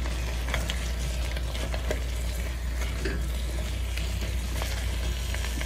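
Chunks of yam sizzling as they sauté in a cast-iron pot, with a steady hiss and a few light knocks of a wooden spoon stirring them.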